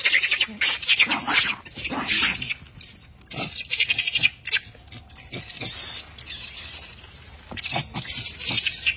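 Macaque monkeys screaming in repeated shrill, high-pitched cries, with short lulls between bouts.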